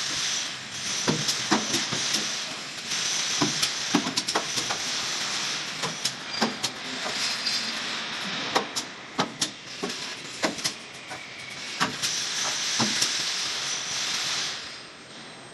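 Robotic welding on a car body frame: stretches of hissing and sizzling a second or two long, broken by many sharp clicks and snaps, dying down near the end.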